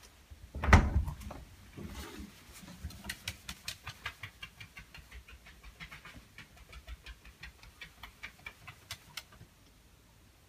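A single thump about a second in, then a Chihuahua's claws clicking on a wooden floor as it trots about, a quick run of light ticks, several a second, that stops shortly before the end.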